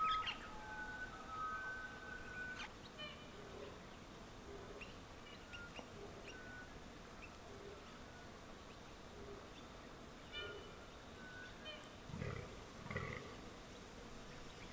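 Fallow buck in the rut giving its low, belching groan twice, about a second apart, near the end. A bird whistles at the start, and birds chirp now and then throughout.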